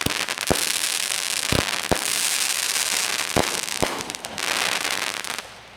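Consumer fireworks cake firing: a dense crackling hiss broken by about six sharp bangs, which stops a little over five seconds in.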